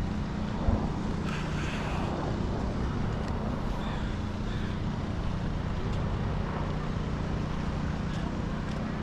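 Urban outdoor ambience under a steady low engine hum, with a short burst of hiss about a second in and a few faint ticks.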